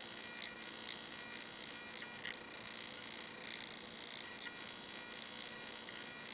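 Faint steady electrical hum and hiss with a few thin high tones and some brief faint rustles; the TV's own sound is absent.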